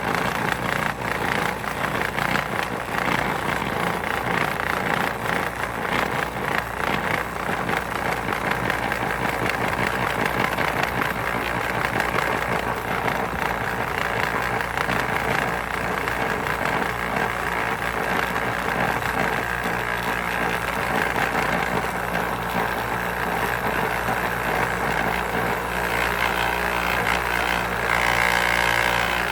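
Homemade compost sifter running with a steady mechanical drone and a continuous rattle as soil is shaken through its screens. A steadier hum comes in near the end.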